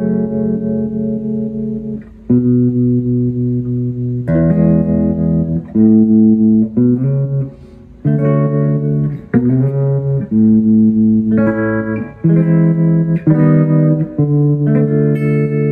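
Electric guitar played through a restored 1973 Fender Silverface Twin Reverb with new Jensen speakers, as a play test of the amp. Chords and notes ring for a second or two each, with short breaks about two seconds and eight seconds in.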